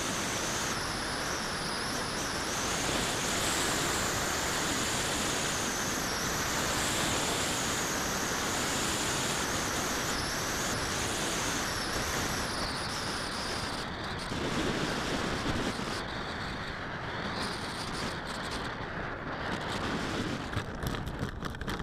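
Air rushing over the onboard camera of a 3.2 m radio-controlled glider in flight, a steady wind noise with a high whistle that wavers up and down in pitch. The whistle fades about fourteen seconds in as the glider slows and sinks, and near the end there are scraping knocks as it touches down on grass.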